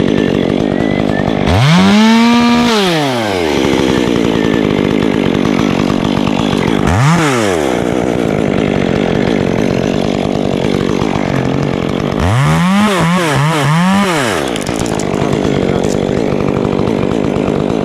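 Chainsaw engine running steadily near idle, revved up and back down three times, the third time with the throttle blipped in quick succession.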